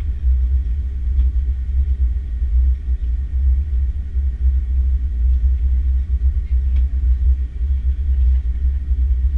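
Steady deep rumble of an Airbus A330-300 cabin on the ground, with a fainter even hum above it and a few faint clicks.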